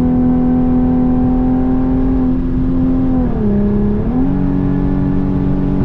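Infiniti Q50's engine and exhaust running at steady revs, heard from inside the cabin. The pitch dips about three and a half seconds in, then climbs back up a moment later and holds.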